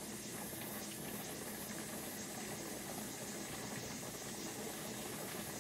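Steady faint hiss of steam escaping at a pressure canner's vent, with a low hum under it. The weighted gauge is not yet rattling: the canner is still building pressure toward 10 pounds.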